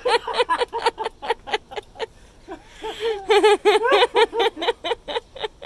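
A person laughing hard: two long runs of quick, high-pitched ha-ha bursts, with a breath drawn between them about halfway through.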